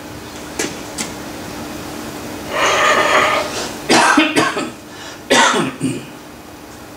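A man clearing his throat and coughing in several harsh bursts, starting about two and a half seconds in, over a steady low hum.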